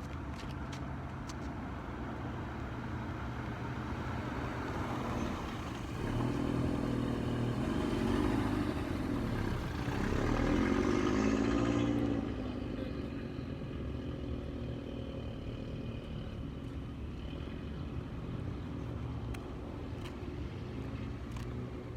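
A motor vehicle passing by: its engine grows louder, with the pitch bending up and down, peaks a little past halfway, then fades away over a low background rumble.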